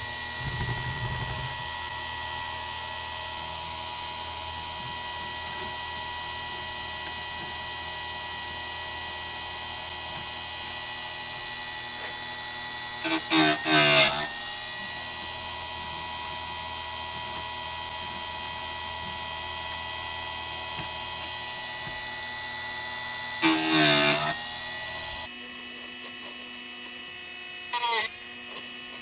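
Chicago Electric electric chainsaw chain sharpener running with a steady whine. Three times (near the middle, later on and again near the end) the grinding wheel is brought down onto a chain tooth, giving a short, loud grinding burst.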